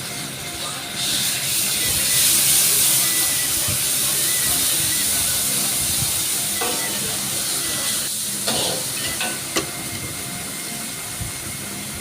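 Steady sizzling hiss of food frying in hot oil in a wok, growing louder about a second in, with a few short taps of a utensil against the pan in the second half.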